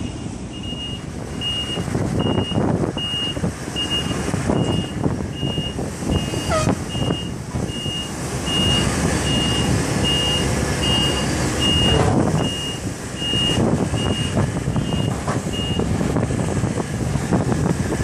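Takeuchi TB290 excavator's diesel engine and hydraulics working as it digs dirt, the engine note surging unevenly with the digging. A backup alarm beeps steadily, a little faster than once a second, and stops about 16 seconds in.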